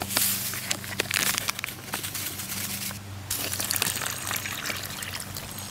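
Water pouring into a plastic MRE beverage bag, with the thin plastic crinkling as it is held. The pour breaks off briefly about three seconds in, then resumes.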